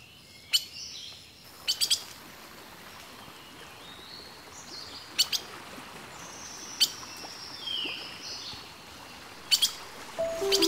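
Wild birds calling: several sharp, high chirps and a few longer high whistles, one of them falling in pitch, over a steady background hiss. Music comes in just before the end.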